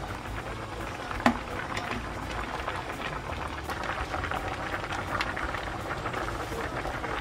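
Spicy braised chicken stew bubbling and popping at a hard boil in a frying pan, with a sharp click about a second in.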